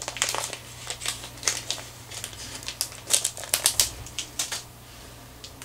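Quick irregular clicks and crinkling of small plastic packets and tying materials being rummaged through on a fly-tying bench while looking for a pack of eyes. The rustling stops about four and a half seconds in.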